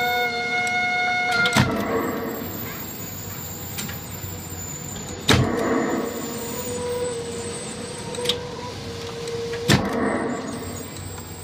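Small electric motors of a 1973 Midway Duck Hunt electromechanical rifle game running, driving the moving duck, goose and bush targets. A steady hum cuts off about a second and a half in, and a few sharp clicks come at intervals.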